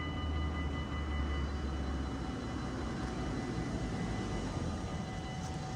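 Level-crossing warning bells ringing with steady metallic tones that die away about two seconds in, over a steady low rumble and a growing rushing noise.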